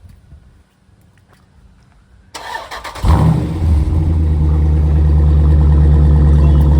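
Jeep SRT's 6.4-litre HEMI V8 with a straight-piped exhaust being started: the starter cranks a little over two seconds in, the engine catches with a sudden jump in level about three seconds in, then settles into a loud, steady idle.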